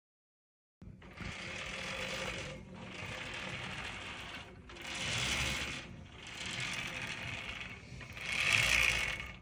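Roller chains running over the sprockets of a freshly refurbished first-generation Nautilus Super Pullover machine as its movement arm is cycled, starting about a second in. The chain noise comes in about five strokes of roughly two seconds each, with a brief pause at each change of direction.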